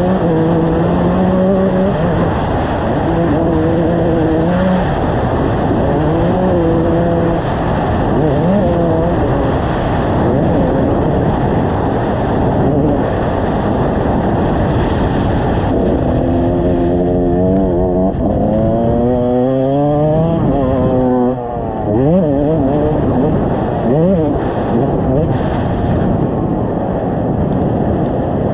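2001 Kawasaki KX125 two-stroke dirt bike engine on a motocross track, revving up and down through the gears, with steady rushing noise underneath. In the second half it gives a run of quick rev blips and briefly drops off about three-quarters of the way through.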